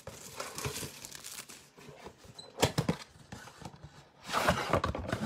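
A cardboard trading-card box being handled and opened: irregular rustling, scraping and tearing of its packaging, loudest in two short stretches, one in the middle and one near the end.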